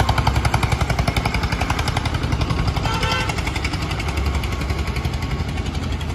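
Diesel farm tractor running as it pulls a trailer, its engine making a rapid, even thudding pulse. A brief higher-pitched tone sounds about three seconds in.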